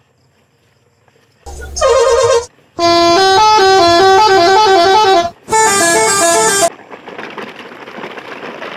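Musical vehicle horn playing a quick stepping tune in three loud blasts, starting about a second and a half in, the middle blast the longest. A duller steady rushing noise follows for the last couple of seconds.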